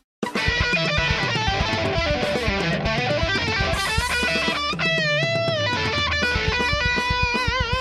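Music led by electric guitar, starting after a brief silent gap, with a lead line of bending, wavering notes over a steady beat.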